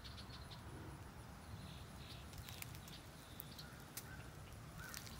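Quiet outdoor ambience: a steady low rumble with a few faint, brief high chirps and scattered soft clicks.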